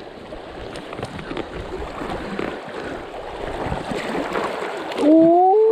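Rushing water of a fast trout stream, with some irregular water and handling noise as a hooked trout is brought to the net. About five seconds in, a man's loud rising "ooh" cuts in over it.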